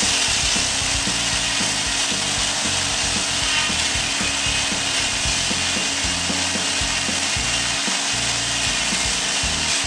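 Tractor-driven sawmill blade cutting through a log: a steady, rasping cut that sets in abruptly and holds without a break.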